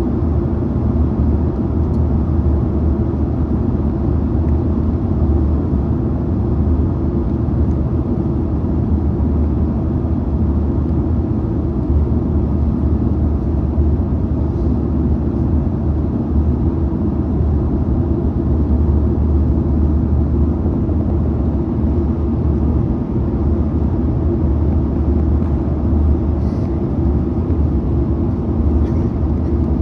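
Steady low rumble of airflow and jet engine noise inside the cabin of a Boeing 737-900ER in flight, holding an even pitch and level.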